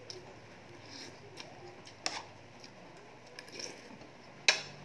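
Eating rice and dried fish by hand from a plate: quiet handling with scattered small clicks, one sharp click about two seconds in and two loud sharp clicks near the end.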